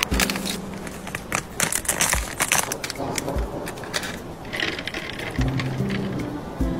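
Plastic snack packaging crinkling and clicking as packets are handled and torn open, over background music with a deep bass line and a beat.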